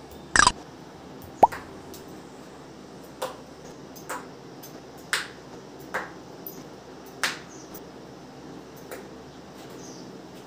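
Sharpened matchsticks flicked from the fingers at a thermocol (polystyrene foam) board: a run of short, sharp taps and clicks, about eight in all at uneven gaps. The two loudest come near the start, and the second has a brief ring.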